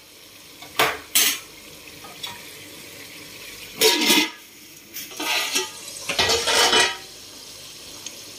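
Steel lid clanking and scraping against a steel cooking pot as it is put on and lifted off: two short clinks about a second in, then a louder clatter around four seconds and longer rattling scrapes over the next three seconds. A low steady sizzle of chicken cooking in the pot runs underneath.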